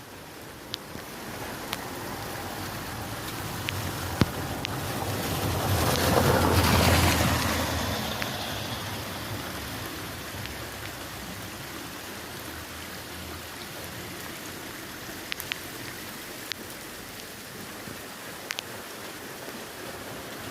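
Steady heavy rain, with scattered sharp drip ticks. A louder rushing swell builds and fades a few seconds in.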